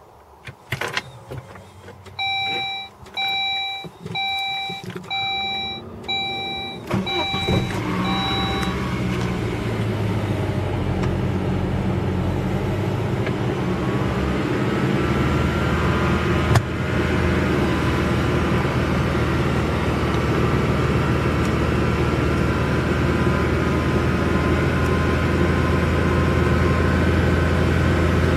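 A Saab car's dashboard warning chime beeps about ten times, evenly spaced. The engine starts partway through the beeping and then runs steadily, with a faint whine slowly rising in pitch, in a car suspected of turbo failure.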